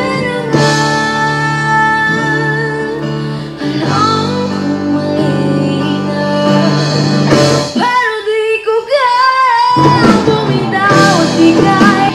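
A woman singing a ballad along to a backing track with guitar, her voice wavering on held notes; about eight seconds in the low accompaniment drops out for a couple of seconds, leaving the voice over lighter backing.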